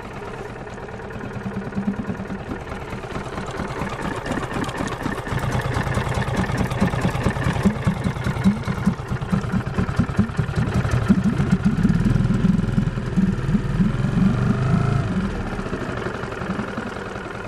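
Marlin MF 5 AMHS four-stroke outboard motor idling in neutral on its first cold start, choke pulled fully out: a steady, quick putter. It grows louder over the first few seconds, is loudest past the middle, and eases off near the end.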